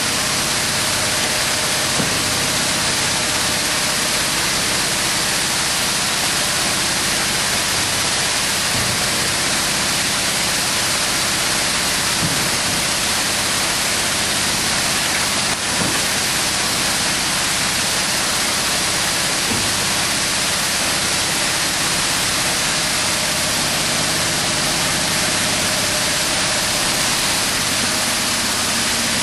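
Vertical form-fill-seal packaging machine running: a steady, even hiss with a faint hum and a few faint clicks.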